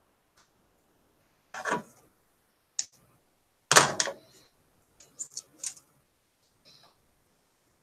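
Handling noise: a few separate knocks and clicks with short rustles, with quiet gaps between them. The loudest come about two seconds in and about four seconds in, with a quick cluster of small clicks a little after five seconds.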